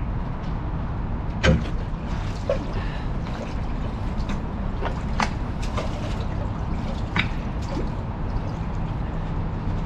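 Canal water sloshing and dripping at a boat's stern beside the rudder, over a low steady rumble. A few sharp drips or splashes come through.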